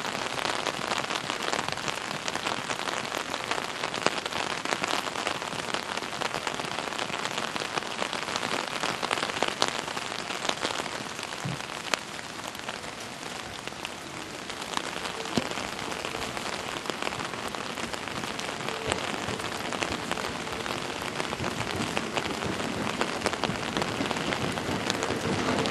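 Steady rain falling, a dense patter of drops with scattered sharper drop hits. A faint steady tone comes in near the end.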